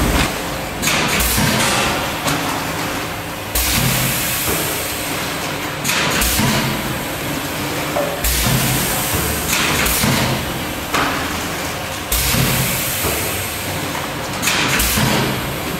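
Doy Pentavac vertical bagging machine for sauces, with volumetric doser and outfeed conveyor, running in production. A steady machine hum is broken by a sudden louder burst of mechanical noise about every two and a half seconds, each dying away before the next.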